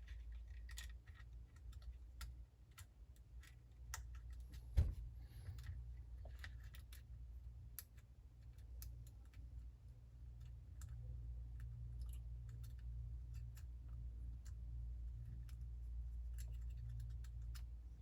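Scattered small clicks and taps of a smartphone being put back together by hand, its parts and tools clicking against each other and the work surface, with one louder knock about five seconds in. A steady low hum runs underneath.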